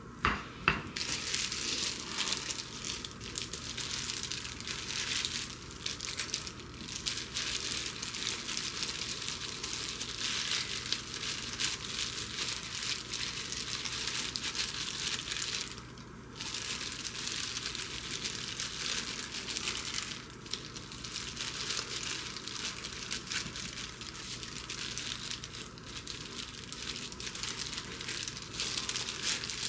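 Disposable plastic gloves crinkling and rustling as hands press and spread cooked rice over a sheet of dried seaweed, with a short break about halfway. A single sharp knock about a second in.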